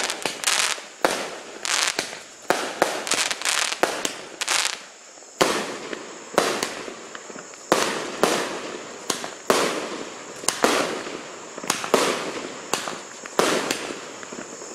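A 68-shot fireworks cake firing in a rapid, irregular string of sharp shots, about one or two a second, each with a short fading tail as the shells launch and burst.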